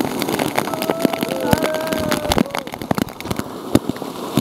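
River rapids splashing over a waterproof camera housing: many sharp knocks and spatters of water hitting the case over a constant rush of whitewater.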